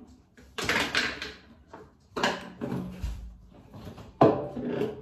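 Things being handled and moved about within reach, perhaps in a drawer, in three short bursts of rustling and clatter. The last burst, just after four seconds in, begins with a sharp knock.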